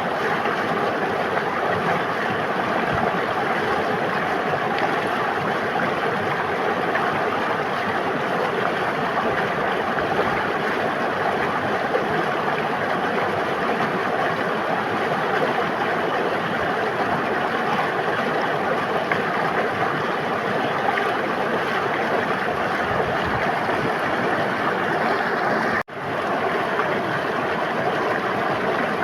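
River water flowing: a steady rushing and babbling that cuts out for an instant near the end, then comes back.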